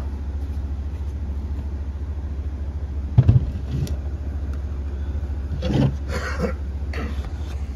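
Aluminium cylinder head being flipped over on its metal head stands: a heavy clunk about three seconds in, then a few lighter knocks and rattles around six seconds, over a steady low hum.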